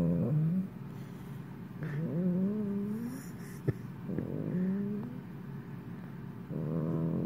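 Italian greyhound snoring in its sleep: a pitched, whiny snore with each breath, about every two seconds, the middle two rising in pitch. A single sharp click a little past halfway.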